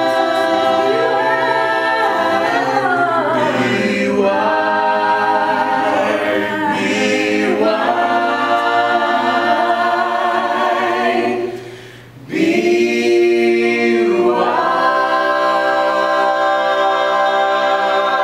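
A cappella choir singing slow, sustained chords. The voices break off briefly about twelve seconds in, then hold a new chord.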